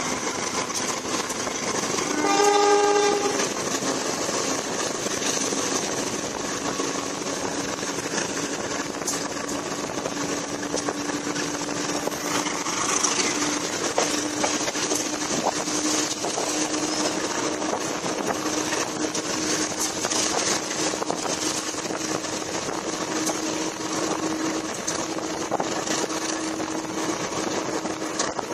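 Passenger train running at speed, heard from an open carriage window: steady wheel-on-rail and wind noise with a low hum that slowly rises in pitch. The locomotive horn blows once, for about a second, a couple of seconds in.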